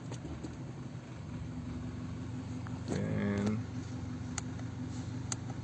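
BMW 320i engine idling steadily, with two light clicks near the end.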